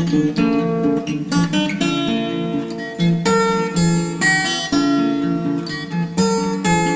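Background music played on acoustic guitar: plucked and strummed chords with new notes struck about every half second.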